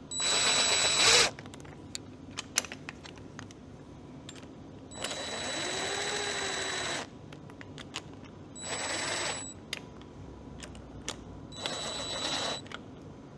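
DeWalt cordless impact driver running in four short bursts: about a second, then about two seconds, then two more of about a second each. It is turning down the bolts of a spring compressor on a motorcycle rear shock, one side and then the other, to compress the spring evenly. Light clicks and taps sound in the gaps between bursts.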